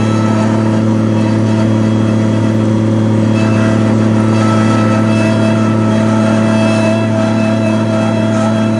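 Skid steer's engine running at a steady speed, a loud, even drone with no change in pitch.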